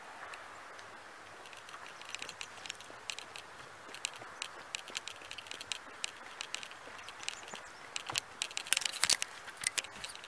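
Faint outdoor ambience: a steady soft hiss with scattered short crackling clicks that start about two seconds in and grow busier and louder toward the end.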